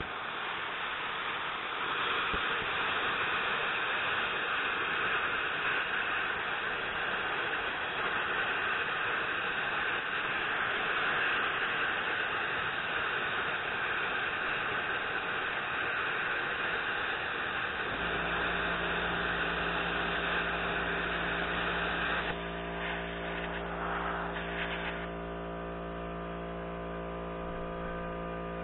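CUT50P pilot-arc plasma cutter cutting through a rusty cast-iron brake rotor: a loud, steady hiss of the arc and compressed air for about 22 seconds. The hiss then stops and flickers briefly. A steady machine hum with several tones starts about 18 seconds in and carries on after the cut ends.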